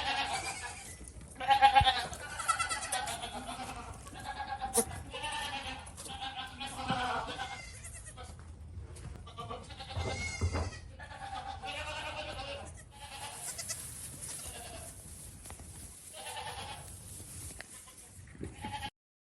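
Several goats bleating, call after call, some calls with a wavering quaver. The sound cuts off abruptly near the end.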